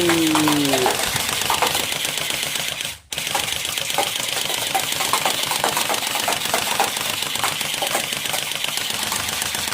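Toy gun firing a continuous rapid rattle of clicks over a hiss, broken by a short gap about three seconds in.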